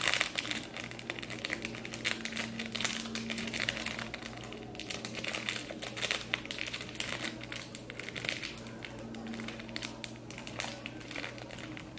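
Plastic packaging crinkling and crackling as small packages are opened by hand, a continuous irregular run of small crackles.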